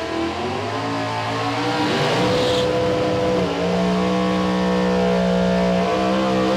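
Chevy Cobalt Super Stock drag car's engine revving at the end of its burnout, the pitch stepping up and down, then held at steady high revs for the last few seconds as the car creeps forward.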